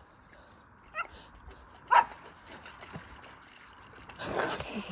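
Dog giving two short high yips about a second apart, the second louder, then a brief burst of rustling or splashing noise near the end.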